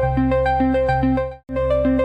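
Background synthesizer music with repeating notes over a sustained bass, cutting out for a split second about one and a half seconds in and starting again, as at a loop point.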